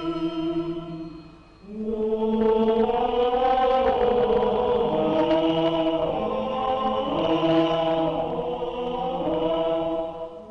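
Film soundtrack of a choir chanting in long held notes. The voices fade out about a second in, then come back in a new, louder phrase and shift pitch from note to note.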